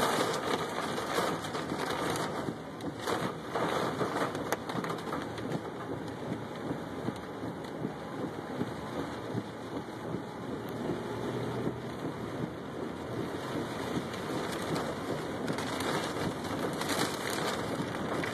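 Golf-ball-size hail pelting a truck: a dense, continuous clatter of hits on the body, slightly heavier in the first couple of seconds.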